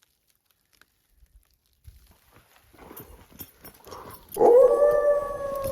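Wolf howl: one drawn-out call at a steady pitch, starting about four and a half seconds in, after faint scattered clicks and rustles.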